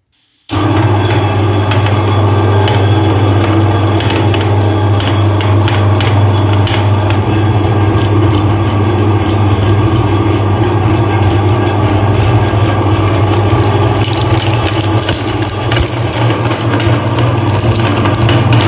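Electric meat grinder's motor running with a steady hum, switching on abruptly about half a second in. Near the end, chocolate cones are being ground through the plate.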